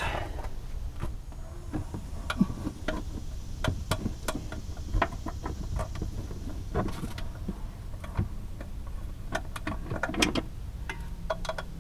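Hand wrench clicking and clinking against the nuts and bracket of a GMC Acadia's rear engine mount as the bolts are loosened: scattered metal clicks, with a quicker run of them near the end.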